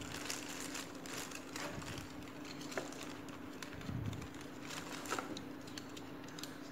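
Clear plastic zip bag crinkling and rustling faintly as drone spare propellers are worked out of it by hand, with a few sharp crackles, over a steady low hum.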